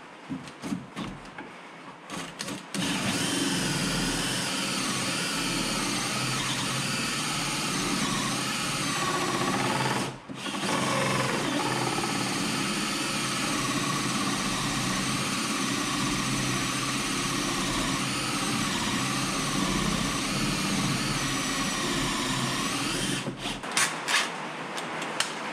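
Cordless drill spinning a Diablo carbide hole saw through a wooden wall plate, cutting steadily for about twenty seconds with one brief stop partway through. A few knocks and clicks come before the cut starts and again near the end.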